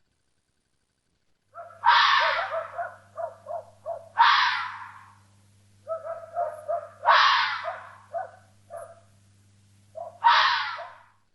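An animal calling: two similar phrases, each a quick run of short notes broken by harsh, drawn-out screeching cries, over a steady low hum.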